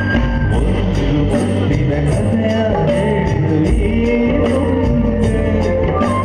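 A live stage band playing a pop song, with a male singer's voice over a steady drum beat.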